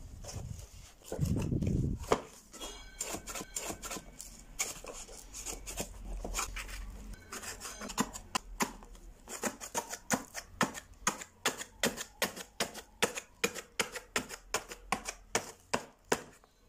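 Paper and metallic foil handled and pressed down on a board with a wooden craft stick: rustling, scraping and a run of quick clicks, about two or three a second in the second half, after a dull thump about a second in.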